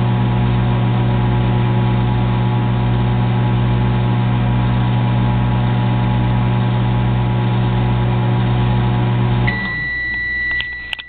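Microwave oven running with a loud steady hum, which cuts off about nine and a half seconds in as its timed cycle ends. A long high beep follows, with a couple of sharp clicks.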